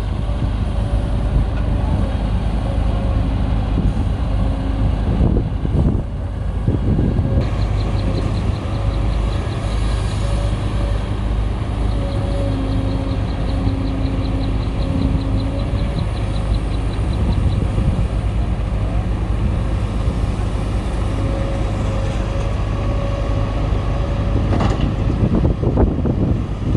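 Heavy diesel construction machinery, an excavator and a dump truck, running steadily. A rapid, faint, high ticking comes in for several seconds in the middle.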